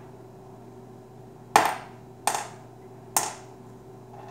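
AA batteries dropped one at a time onto a hard tabletop, landing with three sharp, briefly ringing clacks about a second apart. This is the drop test for charge, in which a dead alkaline battery bounces.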